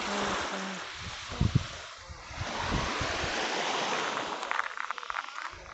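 Gentle sea surf washing onto a beach, a steady hiss of breaking water, with wind buffeting the microphone and a couple of low thumps about a second and a half in.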